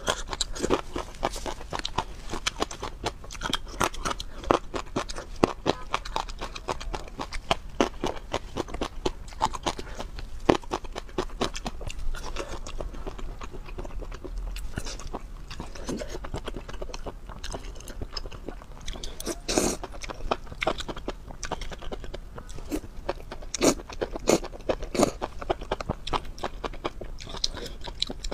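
Close-miked eating: crisp crunching bites and wet chewing of spicy food, including tiny striped melons, baby octopus and sauce-coated enoki mushrooms, with a quick, irregular run of clicks and crackles.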